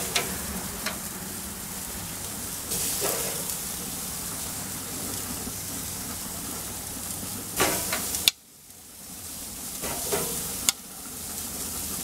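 Slices of peameal (Canadian back) bacon sizzling on a hot gas grill's grate as they are laid on one by one with metal tongs, with a few sharp clicks of the tongs against the grate. The sizzle drops away suddenly about eight seconds in and builds back up.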